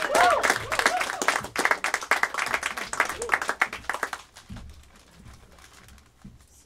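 A small crowd applauding, with a few whoops at the start, the clapping dying away about four seconds in.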